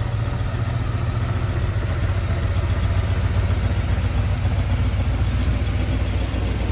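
A 1978 Chevrolet Suburban's Blueprint 355 small-block V8 idling steadily, with a low, even rumble.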